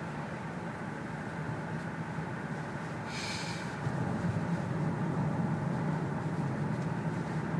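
Engine and road noise of a 2007 Lexus ES350's 3.5-litre V6, heard from inside the cabin while driving, carrying the knocking of piston slap that the owner takes for a design or production defect. It gets louder about four seconds in, with a brief hiss a little before.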